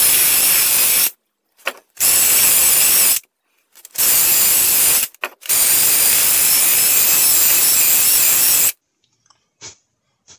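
Rotary tool spinning a small emery flap wheel against metal, cleaning off corrosion: three short runs of about a second each, then a longer run of about three seconds that stops suddenly.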